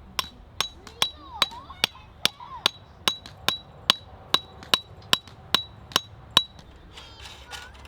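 Steady, evenly paced metallic hammer strikes, about two and a half a second, each with a short ring, stopping near the end.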